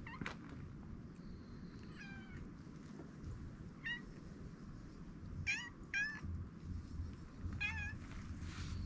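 A stray cat meowing five times in short, high, wavering mews, two of them close together near the middle.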